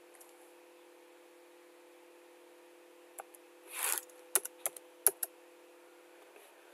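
A handful of computer keyboard keystrokes: a quick run of sharp clicks over about a second, starting about three seconds in, just after a short breathy rush of noise. A faint steady hum sits underneath.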